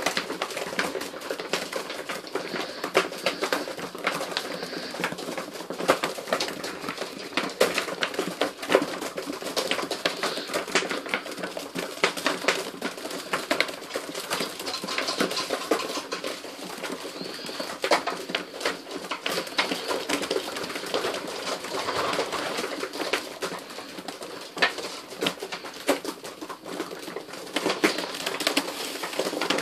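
A flock of domestic pigeons crowding to feed from a hand, cooing, with frequent sharp clicks of beaks pecking seed and wings flapping.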